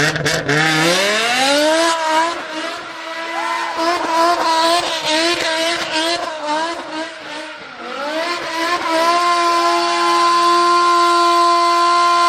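BMW M5 E60's S85 5.0-litre naturally aspirated V10 revving, with a few sharp pops at the very start. Its pitch climbs over about two seconds and wavers, dips about eight seconds in, then rises again and holds a steady high note.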